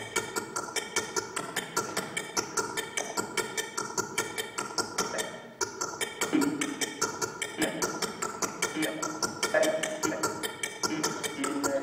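Glitchy electronic performance audio from a prepared computer desktop. A fast, even run of clicks, about five or six a second, is broken by short electronic tones that come and go.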